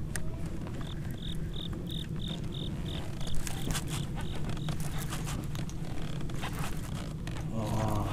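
Baitcasting reel being cranked, giving a scraping, ratcheting whir with scattered clicks, over a steady low hum. A run of about a dozen short high beeps, about three a second, sounds during the first half.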